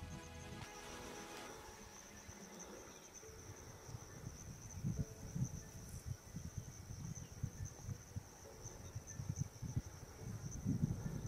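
Insects trilling: a steady, high-pitched, finely pulsing trill that runs throughout. Irregular low bumps and rustles come in from about five seconds in and grow louder near the end.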